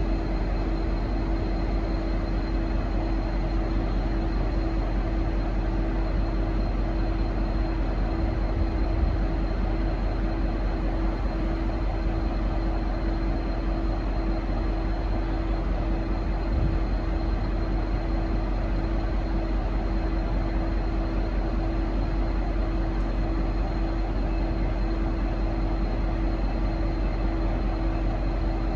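V/Line N class diesel-electric locomotive running steadily, a constant engine drone with a steady hum, and no horn blasts.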